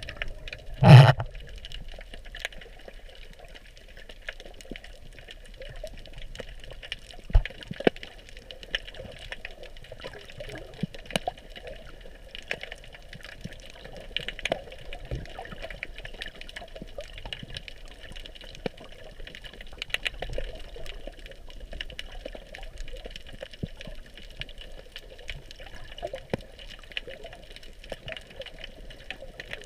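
Underwater ambience picked up by a submerged camera: a steady muffled hiss with many faint scattered clicks and crackles, and one loud knock about a second in.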